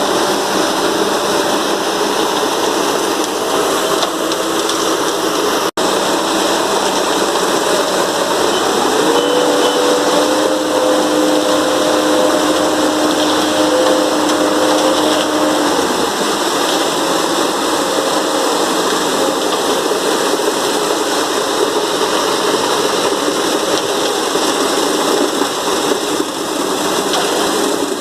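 Diesel engine of an Ajax Fiori ARGO 4000 self-loading concrete mixer running steadily under work, with a steady whine joining in for several seconds near the middle.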